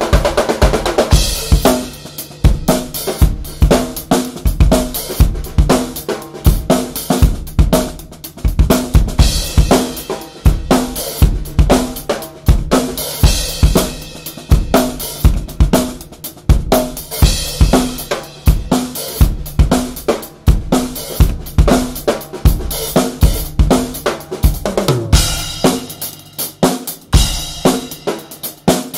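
Drum kit played in a steady funk groove that switches between two snares, one of them a Gretsch popcorn snare, a small high-pitched snare, over bass drum, hi-hat and cymbals.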